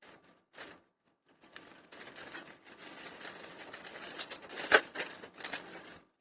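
Packaging being handled and opened by hand: a run of rustling and small clicks, with one sharp snap a little before the end.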